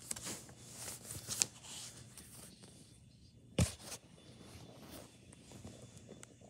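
Paper pages of a comic book rustling and being handled, with several light clicks in the first second and a half and one sharp knock about three and a half seconds in.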